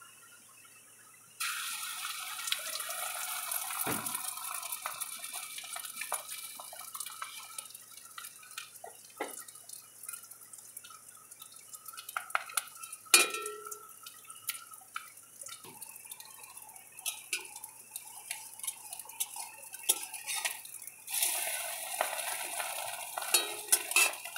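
Beaten egg sizzling in hot oil in a wok (kadai): the sizzle starts suddenly about a second and a half in as the egg goes into the oil, then slowly dies down and swells again near the end. A metal spatula clinks and scrapes against the wok throughout.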